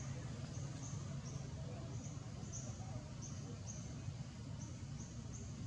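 Outdoor forest ambience: short, high-pitched chirps repeat about twice a second over a steady low rumble.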